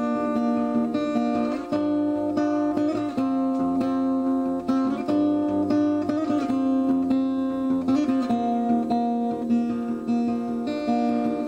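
Acoustic guitar music, with plucked and strummed notes ringing on throughout.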